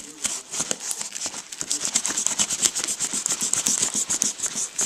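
A scissor blade scraping and sawing at clear packing tape on a cardboard box, with rapid scratchy strokes that run on without a break. The blade is not cutting through the tape.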